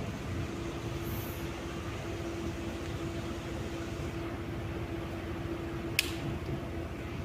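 Cosmos 56-CBA 140 cm industrial ceiling fan running with a steady motor hum and low rumble. A single sharp click about six seconds in.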